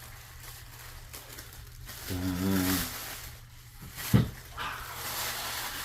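A low, drawn-out voiced hum or groan lasting just under a second, then a single sharp knock a couple of seconds later, followed by soft rustling.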